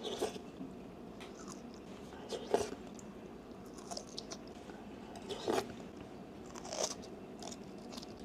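Close-up bites and chewing of a spicy bamboo shoot: a crisp crunch every second or so, loudest about two and a half and five and a half seconds in.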